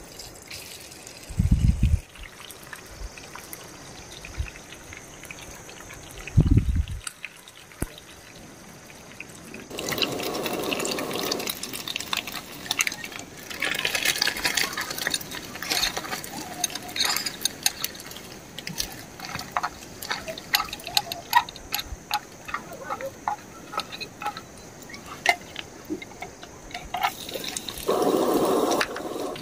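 Camp cooking on a small gas-cylinder stove: a couple of dull thumps as a metal pot is handled, then many quick sharp clicks of a knife cutting potatoes against a metal bowl, with a louder rush of noise near the end as a pan goes onto the burner.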